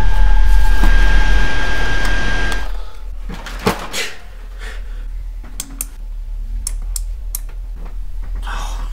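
A loud, low electronic rumble with steady high whining tones, which fades away after about two and a half seconds. Then a quiet stretch of scattered single clicks from a computer keyboard.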